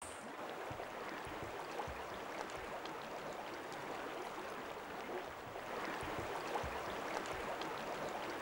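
River water flowing steadily, a broad rushing hiss, with a few faint low thuds scattered through it.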